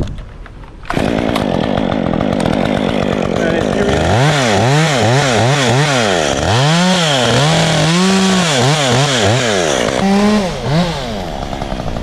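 Top-handle chainsaw starting up about a second in and running. From about four seconds in, it is revved up and down over and over, roughly twice a second, with the revving easing off near the end.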